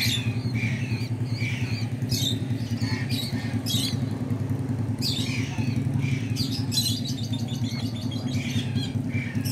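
Parakeets calling with short harsh squawks at intervals, with a quicker run of calls about seven seconds in, over a steady low engine drone.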